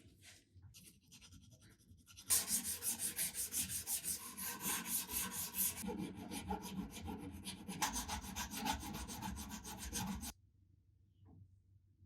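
Hand rubbing with an abrasive, sandpaper or similar, on the old fencing saber in quick back-and-forth strokes, several a second. It starts faintly, grows loud about two seconds in, and stops suddenly near the end.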